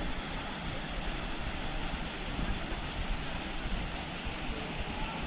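Wind buffeting an action-camera microphone, an unsteady low rumble over a steady rushing hiss.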